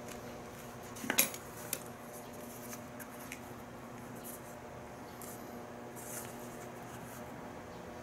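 Light clinks and knocks of small hard tools or objects being handled, a quick cluster about a second in being the loudest, then a few fainter ticks, over a steady low hum.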